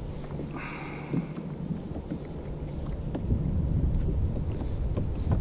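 Wind buffeting the microphone on a kayak at sea, a steady low rumble with scattered small clicks. A brief higher-pitched sound with several tones comes about half a second in and lasts under a second.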